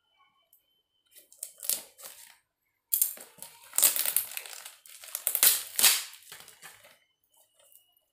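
Plastic and tissue wrapping crinkling and rustling as a small cardboard box is unwrapped by hand. It comes in irregular handling bursts and is loudest from about three to six seconds in.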